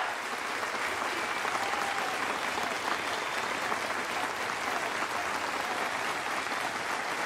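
Crowd applauding, a steady dense clapping.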